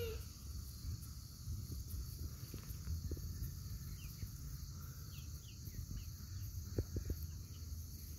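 Summer outdoor ambience: a steady high insect drone over a low rumble of wind, with a few faint short chirps and soft clicks scattered through it.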